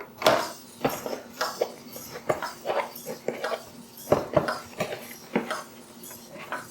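Packaging and plastic parts being handled and unpacked from a box: irregular clicks, taps and rustles.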